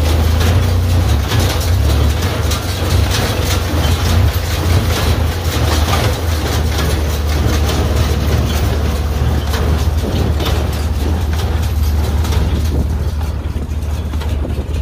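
Tractor engine running steadily with a Massey Ferguson 124 square baler working behind it: a constant low engine drone with repeated knocks from the baler's mechanism.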